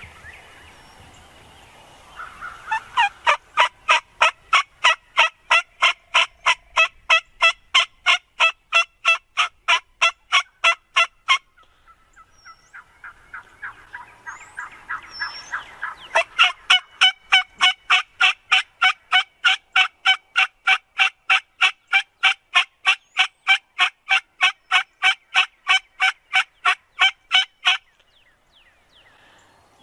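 A bird calling two long, even series of sharp, ringing notes, about four a second. The first series lasts about nine seconds; the second starts after a short pause, lasts about twelve seconds and stops suddenly.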